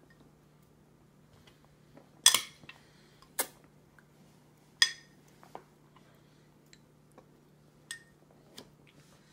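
Metal spoon clinking against a glass bowl while scooping out chopped fruit. A handful of sharp, ringing clinks: the loudest about two seconds in, then again after three and near five seconds, with lighter taps later on.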